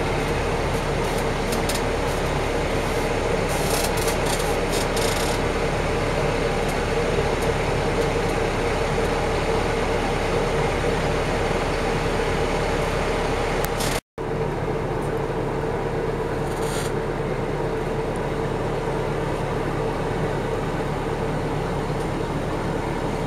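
Engine of a 1981 East German ferry running steadily under way: a continuous drone with a steady hum, with a few short hissing bursts about four seconds in. The sound drops out for an instant a little past halfway, at an edit.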